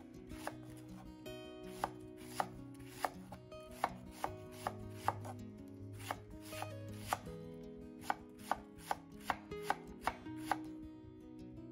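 Chef's knife slicing a cabbage into thin shreds on a wooden cutting board: a sharp knock of the blade on the board with each cut, roughly every half second at an uneven pace, quickening near the end.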